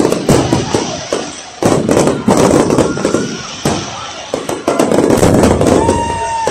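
Fireworks display: many shells bursting in quick succession, overlapping bangs and crackling with no gaps between them.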